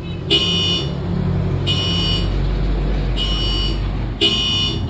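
Modified motorcycle horn sounding four short, bright blasts, each about half a second long and about a second and a half apart, over a low steady hum.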